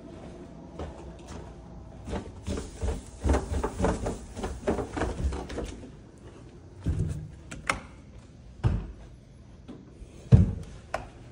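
Footsteps and knocks of someone walking through rooms and handling a door: a quick run of light knocks in the middle, then three louder low thumps in the later seconds.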